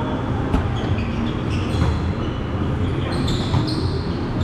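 Volleyball rally in a large, echoing gym: a few sharp hand-on-ball hits, the first about half a second in, with short high sneaker squeaks on the hardwood court over a steady hall rumble.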